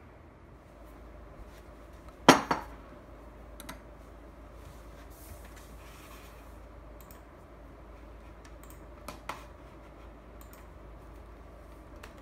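Tableware set down hard on a table with one loud, sharp clunk and a short ring about two seconds in, then a few lighter clinks of dishes and cutlery later on.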